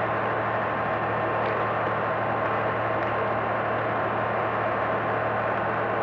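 Concrete pump at work on a building site, a steady, unchanging engine drone with a constant low hum.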